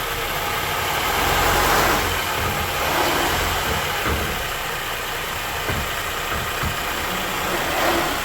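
Ford Edge 3.5 L V6 engine idling steadily, with a brief swell in loudness about a second in, as the car is run to check a newly replaced transmission torque arm.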